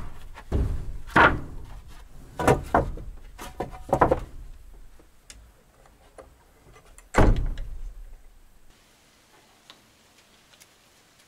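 A run of irregular knocks and thumps, about seven in all, the loudest about seven seconds in; after that only a few faint ticks.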